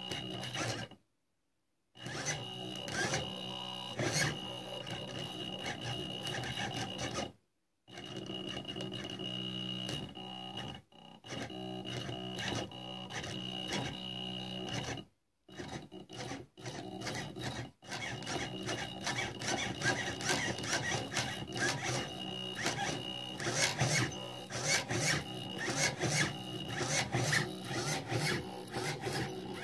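Car windscreen wiper motor, rigged through an H-bridge as a DIY RC steering servo, running in stretches with a few abrupt stops. It gives a steady high whine over a low hum, and a rasping gear noise that gets busier toward the end.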